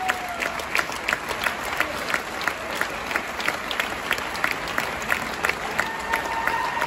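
Crowd applauding, clapping together in a steady rhythm of about three claps a second over a general crowd noise.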